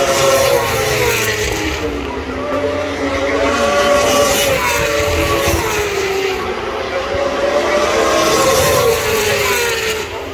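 Racing superbike engines at full race pace, several overlapping engine notes rising and falling in pitch.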